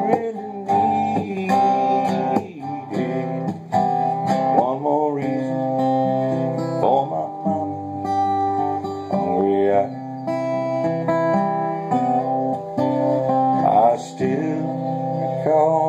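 Acoustic guitar strummed and picked steadily, playing through a song's chord changes.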